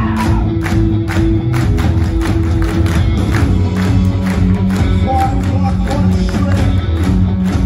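Live indie rock band playing loudly: electric guitars and bass over a steady drum beat, heard from within the crowd.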